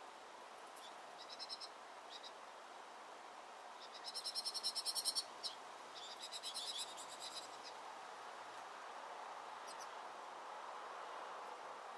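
Small finches at a feeder calling in quick chattering trills: a short burst about a second in, a louder run of rapid high notes around four to five seconds, and another shorter run a second later. A steady faint background hiss runs beneath.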